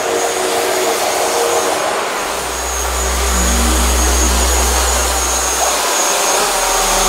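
Small quadcopter drone's propellers buzzing steadily as it hovers and flies close by.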